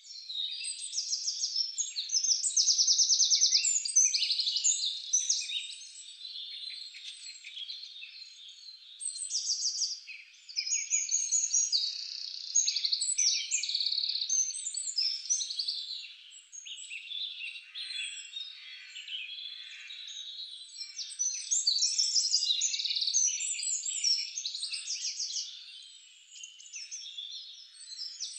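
A dense chorus of small songbirds chirping and trilling without pause, high-pitched, swelling and fading in waves.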